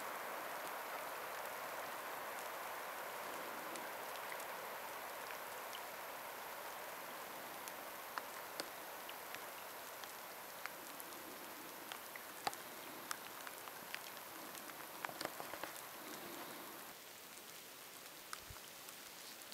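Light rain falling on a lake and the grass along its shore: a steady patter with scattered sharper drop ticks.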